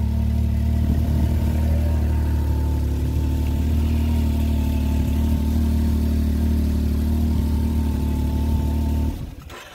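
Can-Am side-by-side's engine idling steadily at an even pitch; it stops shortly before the end.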